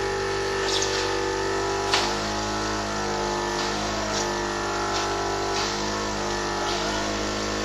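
Cough assist machine (mechanical insufflation–exsufflation device) running its treatment cycles: a steady blower hum whose pitch shifts every second or two as the machine switches between pushing air into the lungs and pulling it back out, with a brief click about two seconds in.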